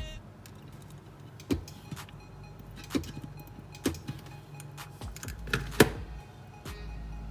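About six sharp clicks and knocks at uneven intervals from hands-on work on a cordless drill battery pack, over background music.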